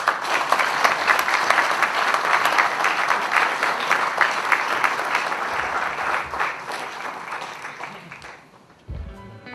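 Audience applauding, dying away over the last couple of seconds. Soft guitar music starts just before the end.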